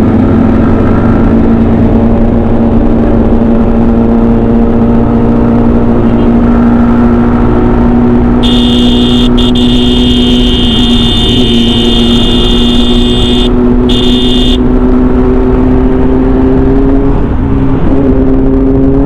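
Motorcycle engine running at a steady cruise with heavy wind rumble on the camera microphone; its pitch creeps up near the end. Partway through, a high steady tone sounds for about six seconds, with a short break shortly before it stops.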